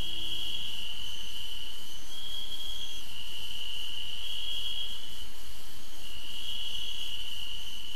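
Crickets trilling at night: a steady high chirring that runs in long stretches with short breaks, over a steady background hiss.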